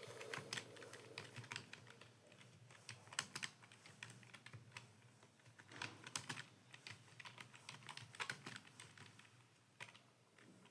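Computer keyboard typing: quick irregular runs of key clicks with short pauses between runs.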